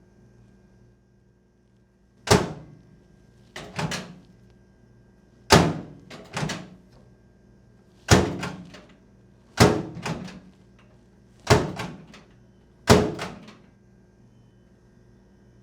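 A series of about eight sharp door-like thuds, roughly one every one and a half seconds, some in close pairs, over a faint steady hum.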